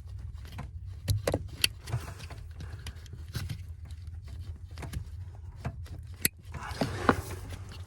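Scattered clicks and knocks of plastic trim and a connector being handled under a car's dashboard as a stiff green connector clip is worked loose, with a denser rattle about two-thirds in and a steady low hum underneath.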